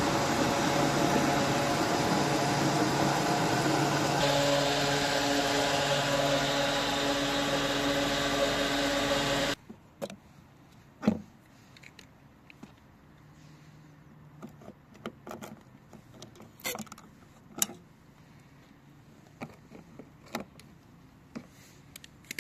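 Steady engine and road noise of a car on the move, the engine note shifting about four seconds in. It cuts off abruptly about ten seconds in, giving way to quiet with scattered clicks and light knocks.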